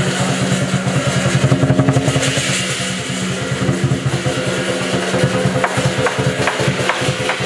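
Music with fast, rolling drum beats over steady held tones; sharp crashes join in during the second half.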